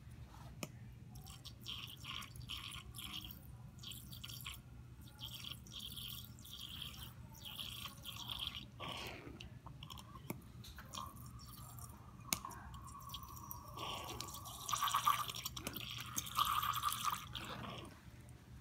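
Plastic laboratory wash bottle squeezed in short pulses, squirting water into glass beakers onto solid glycine and nickel chloride, the stream hissing and spattering about twice a second. In the second half a thin whistling tone joins the squirts.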